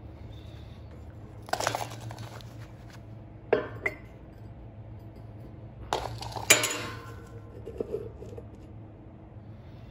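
Steel being handled in a workshop: a few sharp metallic clanks and clinks with short ringing tails, the loudest a little past halfway, over a steady low hum.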